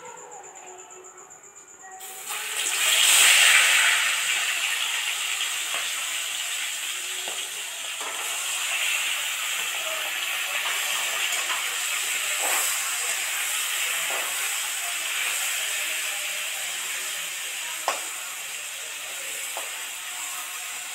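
Masala-coated surmai fish pieces sizzling in hot oil in a steel kadai: the sizzle starts about two seconds in as the first pieces go in, is loudest just after, then carries on steadily. A metal spatula clicks against the pan now and then, once sharply near the end.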